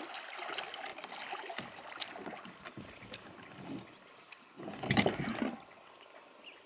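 Steady high-pitched drone of insects, with a few knocks and water sloshing as someone wades beside plastic kayaks and handles them; the loudest knock comes about five seconds in.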